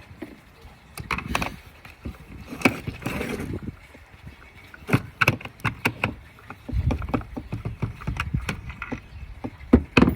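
Plastic parts of a Henry vacuum's turbo brush head clicking, knocking and scraping as they are handled and taken apart, with a low rumble of handling from about two-thirds of the way in.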